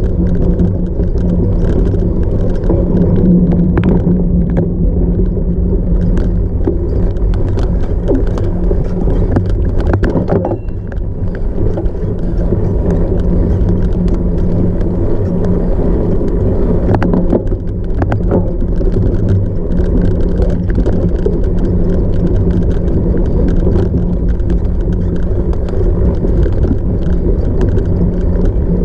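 Riding noise from a cyclocross bike at race pace: a steady low rush of wind on the microphone and tyres on rough ground, with scattered knocks and rattles from the bike over bumps. The noise dips briefly twice.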